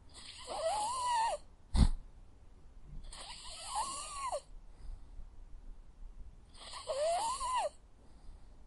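A sleeping dog snoring, three whistling, wheezy breaths about three seconds apart. A single sharp click about two seconds in.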